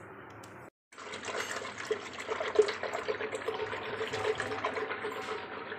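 Wooden hand churner (mathani) spun back and forth in a clay pot of yogurt thinned with water and gram flour, the liquid sloshing and splashing rapidly as the yogurt is churned smooth. The sound drops out for a moment just before the first second, then runs on steadily.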